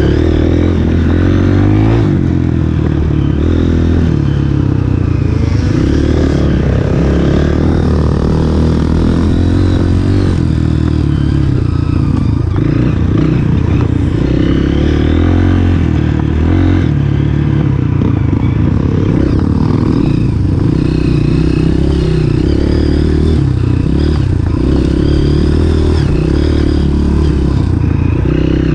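Off-road dirt bike engine running hard during a hare scramble ride, its pitch rising and falling with the throttle.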